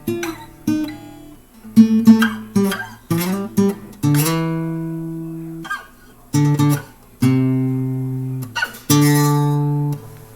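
Acoustic guitar played by hand: quick plucked notes and short chords for about four seconds, then a few strummed chords, each left to ring and fade.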